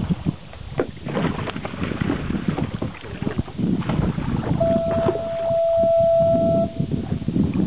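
Wind buffeting the microphone over water splashing against the boat's side as a hooked fish thrashes at the surface while it is gaffed, with scattered short knocks and splashes. About halfway through, a steady high-pitched tone sounds for about two seconds.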